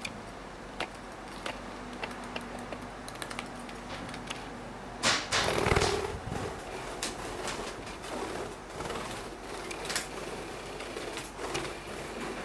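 Budgerigar pecking and tapping at a plastic ball toy and hopping about, making scattered light clicks and taps. About five seconds in there is a louder rustling flurry lasting a second or so.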